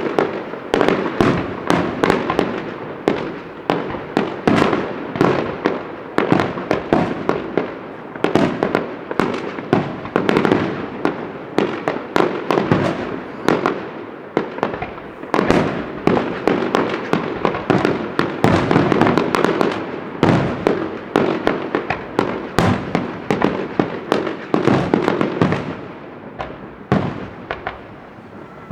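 Fireworks display going off in a dense, continuous volley of bangs, several a second, thinning out and quieter near the end.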